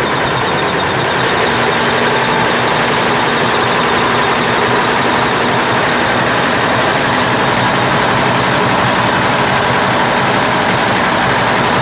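Computer embroidery machine running steadily and stitching at a fast, even rhythm.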